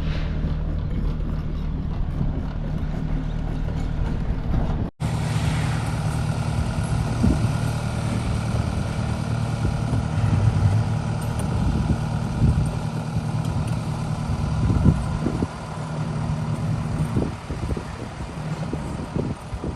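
A large engine running steadily, with scattered clanks and knocks in the second part. The sound breaks off and changes abruptly about five seconds in.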